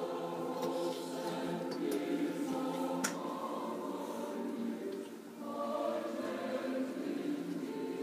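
Choral music: several voices singing long, held notes, fading briefly about five seconds in before carrying on. A single sharp click sounds about three seconds in.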